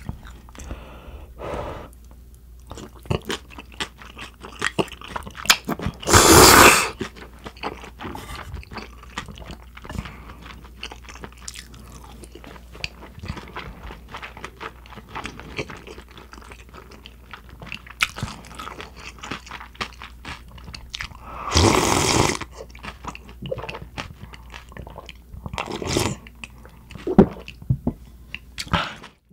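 Close-miked mouth sounds of eating spicy cold naengmyeon noodles: steady wet chewing with many small clicks, and two long, loud slurps about six and twenty-two seconds in, with shorter ones near the end.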